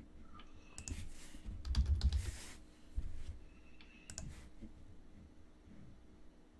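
Scattered computer keyboard keystrokes and clicks, with a brief rustling noise and a dull bump about two seconds in.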